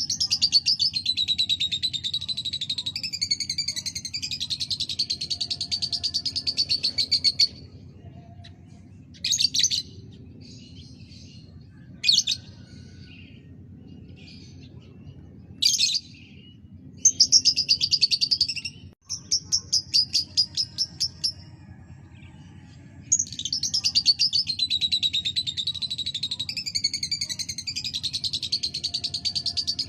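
Lovebird chattering in fast, rattling chirp runs: one long run of about seven seconds at the start, short bursts through the middle, and another long run near the end.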